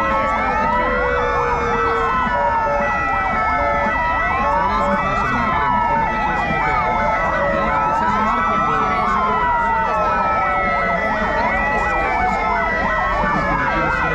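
Several emergency-vehicle sirens wailing at once, their rising and falling pitches overlapping out of step, over a steady high tone.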